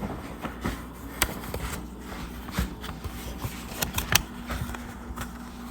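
Walking and handling noise: scattered, irregular knocks and clicks as a person carries a phone through the house, over a faint steady hum.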